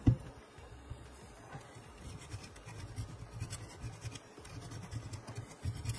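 A short knock at the start, then faint, irregular scratching and handling sounds as a spot-welding pen and a copper strip are moved about on a silicone work mat.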